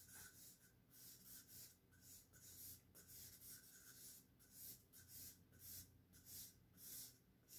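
Charcoal stick scratching across drawing paper in quick, even, repeated strokes, two or three a second, faint, as lines are drawn and darkened.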